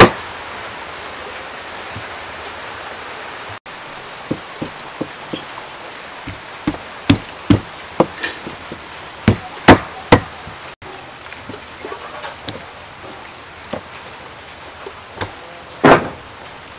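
Meat cleaver chopping a raw whole duck on a thick wooden chopping block: irregular sharp chops, the loudest a cluster about ten seconds in and one near the end, over a steady background hiss.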